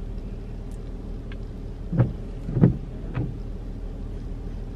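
Three quick gulps of someone swallowing a drink, about half a second apart starting two seconds in, the middle one loudest. Under them is the steady low hum of a car's engine idling, heard inside the cabin.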